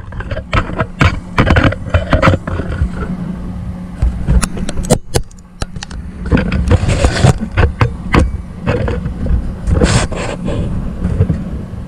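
Irregular metal clanks, knocks and scrapes of steel pieces being handled on a steel workbench, over a steady low hum.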